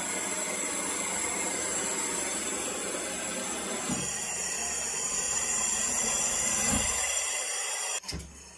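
Homemade compressed-air propane torch burning: a steady rushing hiss with a thin high whistle over it. It gets louder about four seconds in as the flame is opened up, then cuts off suddenly near the end as the flame goes out.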